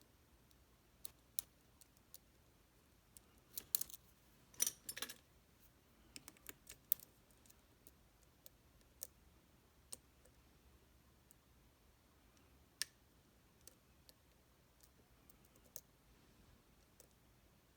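Small sharp clicks and taps of a lock and lock-picking tools being handled, scattered and irregular, with a quick cluster of them about four to five seconds in.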